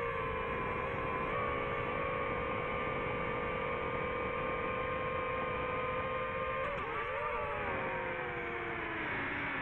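FPV quadcopter's electric motors and propellers whining at a steady pitch over a rushing hiss. The pitch wavers briefly about seven seconds in, then slides steadily lower toward the end.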